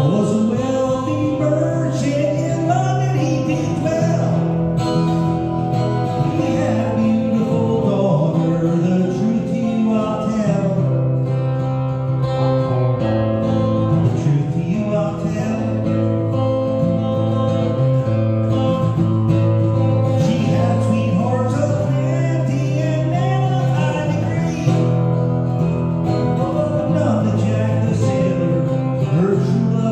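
A man singing a folk-rock song to his own strummed acoustic-electric guitar, amplified through a PA.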